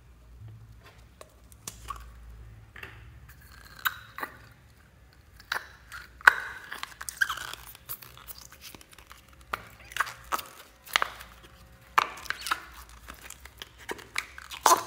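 Sticky clear slime being tipped out of a small can-style container and squeezed and pulled by hand: irregular wet crackles, pops and squelches, coming more often and louder in the second half.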